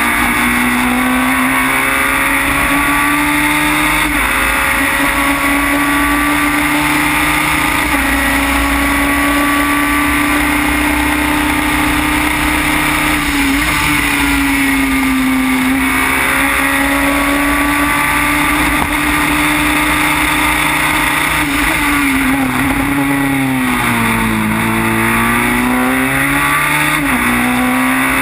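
Formula BMW single-seater's four-cylinder engine heard from the cockpit at high revs, lapping a circuit flat out. The pitch holds high with brief dips at gear changes, and about 22 seconds in it falls as the car slows for a corner, then climbs again under acceleration.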